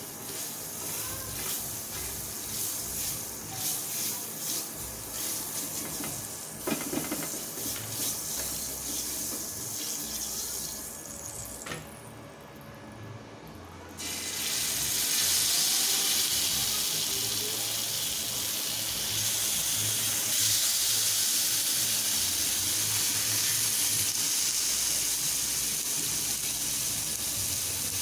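Beef satay skewers sizzling on a hot ridged grill pan. The sizzle jumps to a loud, steady hiss about halfway through, when the skewers go onto the pan. Before that there is a quieter sizzle of margarine melting on the hot pan.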